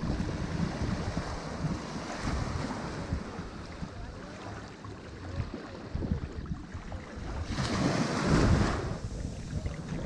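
Sea surf: waves breaking and washing in, with a low wind-like rumble underneath. One wave surges in loudest near the end.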